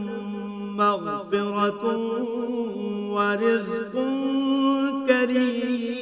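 A male qari chanting the Arabic Qur'an in slow, melodic tajwid style, holding long drawn-out notes with ornamented pitch bends.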